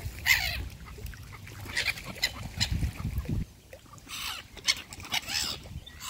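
Mallard ducks and gulls squabbling over food on the water: a string of short, harsh calls about a second apart, with splashing and flapping.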